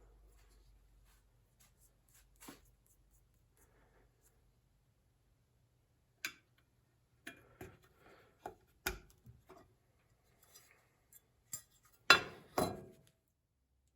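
Irregular clicks, clinks and knocks of tools and small hard parts being handled, sparse at first and more frequent later, with two louder knocks close together near the end.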